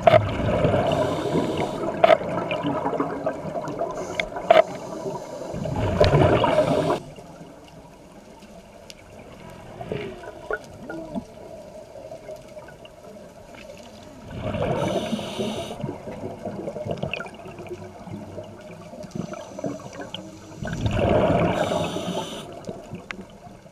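Scuba diver's exhaled bubbles from a regulator rushing past an underwater camera in three long bursts, one per breath, with quieter underwater noise between them.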